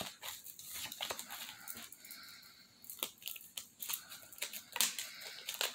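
A deck of reading cards being handled: soft paper rustling and scattered light clicks, with a quieter lull around the middle.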